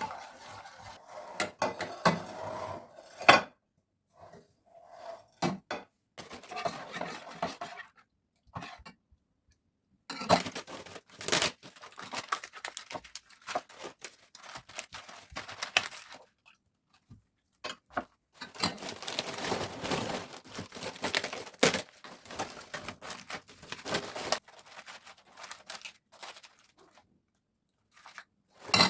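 Kitchen handling sounds: dishes and utensils clinking and scraping, with some rustling, in several short bursts broken by sudden silences.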